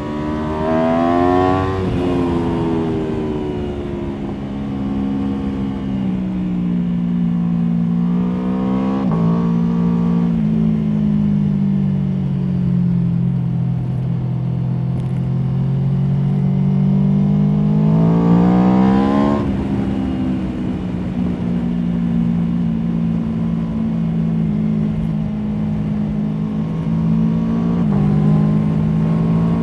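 Aprilia Tuono V4 motorcycle's V4 engine under hard riding. It revs up sharply several times, just after the start, around 8 s, around 18 s and near the end, and its pitch falls between the pulls as it slows for the bends.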